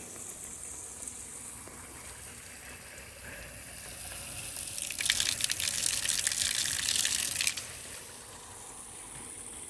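Natural spring water running, with a louder splashing gush for about two and a half seconds starting about five seconds in, which cuts off suddenly.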